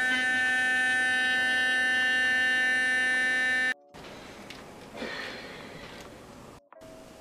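Sonic electric toothbrush running with a loud, steady buzz, cut off abruptly after a little under four seconds. A faint soft rustle follows.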